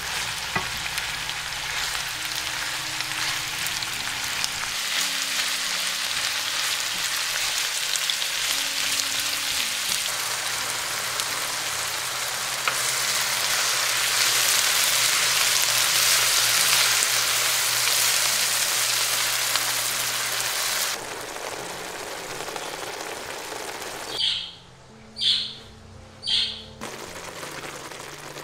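Sliced onions sizzling as they fry in a nonstick frying pan while being stirred with a spatula: a steady sizzle that grows louder, then drops suddenly about two-thirds of the way in. Near the end the sizzle stops and three short high chirps come about a second apart.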